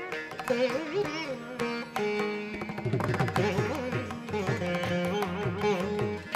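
Background Indian classical instrumental music: a plucked string melody with bending, gliding notes, over light drum strokes.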